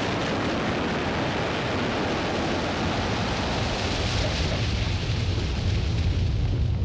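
Quarry blast just set off: a steady, loud rumble of noise with falling debris, the deep rumble growing stronger over the last couple of seconds.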